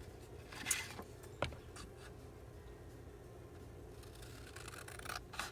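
Faint rustling of paper cards being handled, with a soft rustle near the start and one light tap about a second and a half in, over a low steady room hum.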